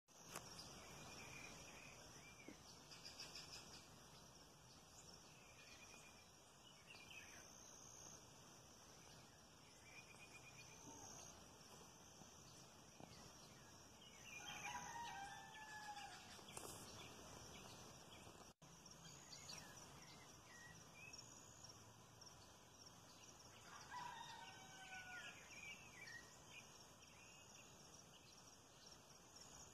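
Faint rooster crowing twice, first around the middle and again several seconds later, each crow ending in a falling note. Under it runs a steady high-pitched hiss with small bird chirps.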